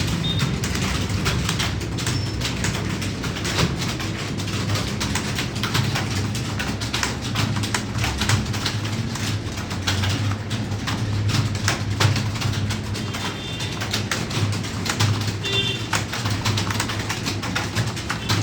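Many computer keyboards clattering at once, keys struck rapidly and continuously during a timed typing test, over a steady low hum. A few short high chirps come through near the end.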